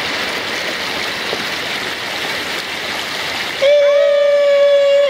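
Steady rush of a fast-flowing river. Near the end a voice holds one long, level 'aah', louder than the water, cut off sharply.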